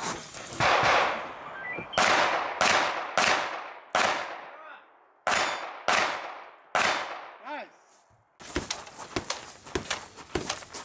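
Handgun fired about eight times in seven seconds, in quick runs of two or three shots, each shot followed by a long echo. After about eight seconds the shooting stops and a lower stretch of small clicks and noise follows.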